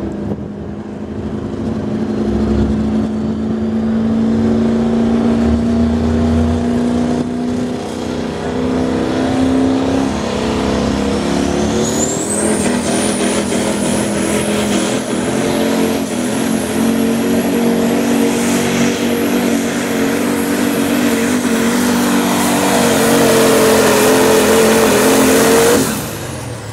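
Turbocharged diesel pulling truck's engine running hard under load as it pulls the sled, with a high turbo whistle that climbs about twelve seconds in and then holds steady. It gets louder near the end and cuts off sharply as the run ends.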